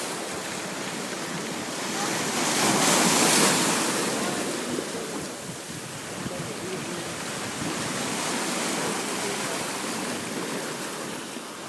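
Sea waves washing onto the shore, one wave breaking and swelling louder about two to four seconds in, then a softer steady wash of surf.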